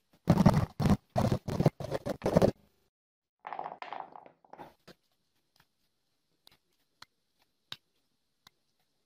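A quick run of about six loud scraping strokes. Then short wooden stick pieces are handled and knock together. In the second half there are single sharp clicks as a folding knife shaves chips off the end of a wooden stick.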